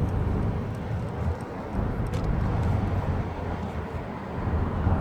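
Mercedes-Benz C-Class driving: a steady low rumble of engine and road noise, with a few faint ticks and no clear squeak standing out.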